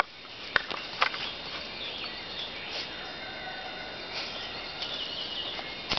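Woodland ambience: faint birds calling over a steady background hiss, with two sharp snaps about half a second and a second in.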